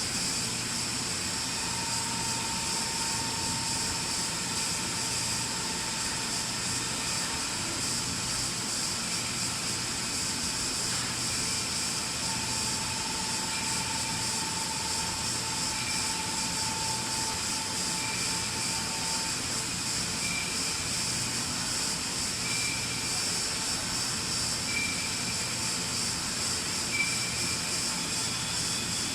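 Nakamura-Tome Super NTM3 CNC turning center running a part program: a steady mechanical hiss and hum, with a thin whine that comes in for several seconds twice and short faint chirps every couple of seconds later on.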